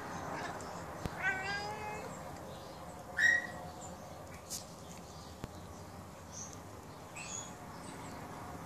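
Domestic cat meowing once, a drawn-out meow about a second in. About two seconds later comes a short, loud high chirp, with fainter high chirps near the end.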